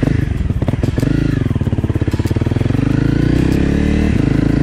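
Dirt bike engine, just started, running as the bike pulls away and picks up speed, with a short break in its note about four seconds in.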